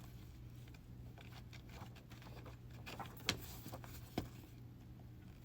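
Faint rustling and a few light taps and clicks of a hardback book being handled and its pages turned, the sharpest tap about three seconds in, over a low steady hum.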